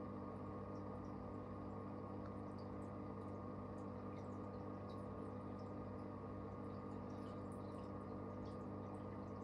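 Steady low hum of the reef aquarium's running pumps, with faint scattered ticks of water above it.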